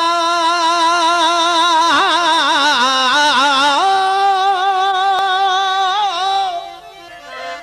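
A man singing a Sufi devotional song: a long held note with a wavering vibrato, a run of quick ornaments between about two and four seconds in, then a steady higher note that fades out near the end.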